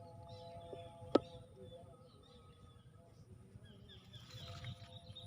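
Steady chorus of calling insects, with a continuous high, thin trill and several lower steady tones. There is one sharp click about a second in.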